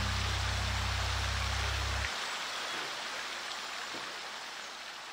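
Fountain water splashing and falling in a steady rush that slowly fades away. A low held note of background music sounds under it and cuts off about two seconds in.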